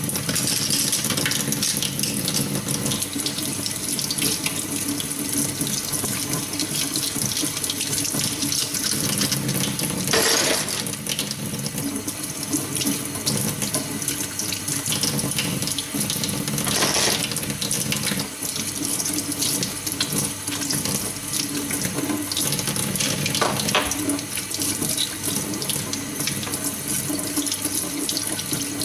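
Tap water running steadily into a stainless steel sink and splashing over makeup brushes as they are rinsed by hand, with a few louder splashes.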